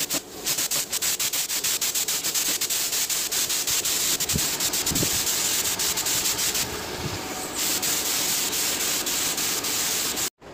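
Rotary power sander-polisher running with its pad pressed against a plastic car bumper, giving a steady, rough, gritty hiss. The hiss thins briefly around the middle and cuts off abruptly just before the end.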